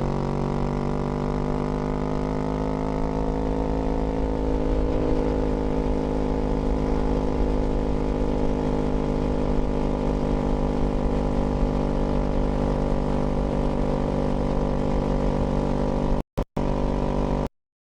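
Kawasaki Z400 parallel-twin engine running at fairly steady revs while riding, with a low rumble underneath. The sound cuts out abruptly twice near the end.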